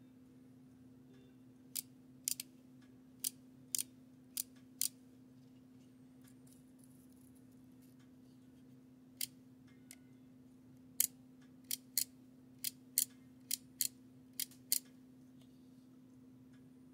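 Sharp clicks in quick succession, some of them doubled, in two bursts: about seven early on and about ten more a few seconds later. A steady low electrical hum runs underneath.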